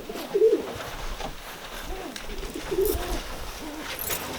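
Domestic homing pigeons cooing: a string of short, low, rolling coos.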